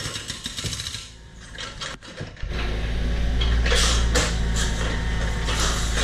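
Mini excavator with a hydraulic breaker: rapid, even hammering for about the first second. From about two and a half seconds in comes the loud, steady low drone of the excavator's diesel engine running, with intermittent noisier bursts on top.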